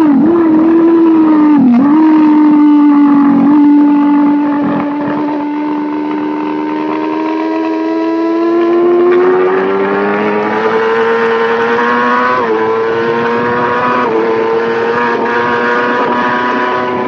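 Race motorcycle engine heard from the onboard camera, running loud at part throttle with a nearly steady note through a long corner. The revs then climb steadily as the throttle opens, with a brief dip in revs about twelve seconds in.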